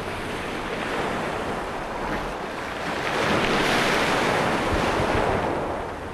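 Rushing noise of strong wind and surf. It swells about three seconds in and eases off just before the end.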